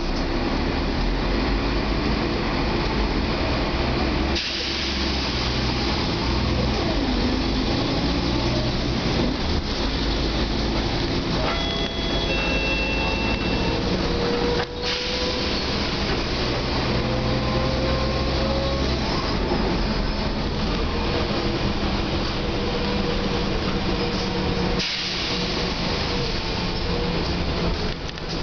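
Mercedes-Benz OC500LE city bus on the move, heard from inside the passenger cabin: steady engine and drivetrain noise with a whine that rises slowly in pitch in the middle. The sound changes abruptly about 4, 15 and 25 seconds in.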